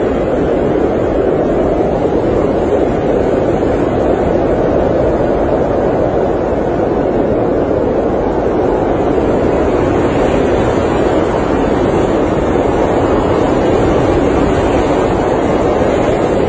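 Blizzard wind heard from inside an RV: a steady, unbroken rushing that is even throughout, with no separate gusts or knocks.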